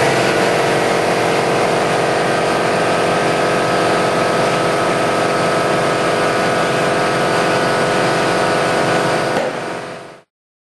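Compressed air rushing through an inflator hose into a low-profile motorcycle tire to seat its bead: a loud, steady hiss with a whistling tone over it. It tails off after about nine seconds and stops.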